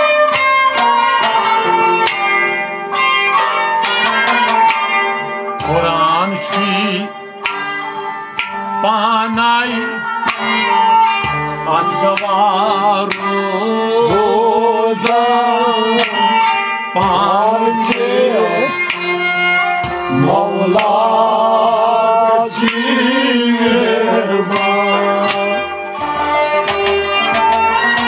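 Devotional folk song: a voice sings a heavily ornamented, wavering melody over tabla and a plucked rubab.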